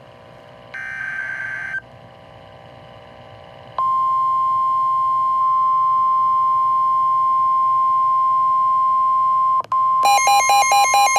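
Emergency alert tones heralding a severe thunderstorm warning. A short beep comes about a second in, then a steady single tone near 1 kHz is held for about six seconds, and after a brief break a rapidly pulsing, multi-tone alert pattern starts.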